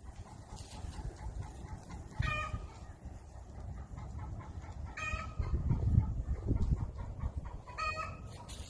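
Farm chickens calling: three short, pitched squawks a few seconds apart, over a low rumbling noise.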